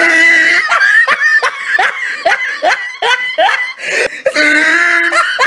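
Laughter, a run of short repeated laughs about two or three a second, with a longer drawn-out laugh near the end.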